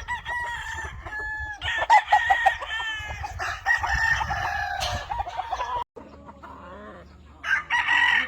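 Several roosters crowing over one another, with clucking among them. The calls break off suddenly just before six seconds, and a fresh crow starts near the end.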